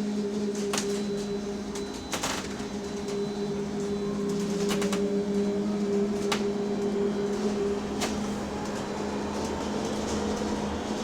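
Electric bus's odd steady drone, a low hum with a higher tone above it, heard inside the passenger saloon, which a passenger fears is a fault. Sharp rattling knocks come every second or two, and a faint whine rises slowly in pitch from about halfway as the bus speeds up.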